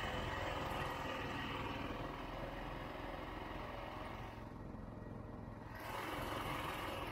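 Vintage Ski-Doo Olympic snowmobile's two-stroke engine running as the sled travels across a frozen lake. Just past the middle the sound drops and dulls for a second or so, then comes back up.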